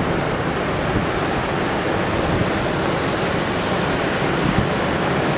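Heavy hurricane-driven storm surf: a steady, continuous rush of many waves breaking on the beach.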